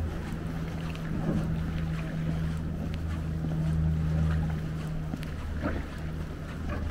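Boat engine running steadily, a low droning hum.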